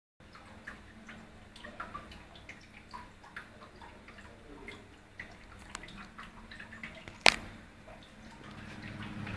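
Faint scattered ticks and drips over a low hum. About seven seconds in comes one sharp loud click, then a Vortice window exhaust fan's motor hum builds steadily as the fan starts up.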